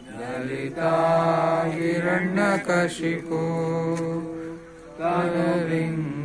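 Devotional chanting: voices sing long held notes in phrases, with a short break about four and a half seconds in.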